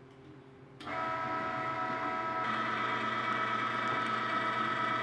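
LEM electric meat grinder switched on about a second in and running steadily with a motor whine, its tone shifting slightly about two and a half seconds in. It is grinding a piece of bread through to push the last ground meat out of the head.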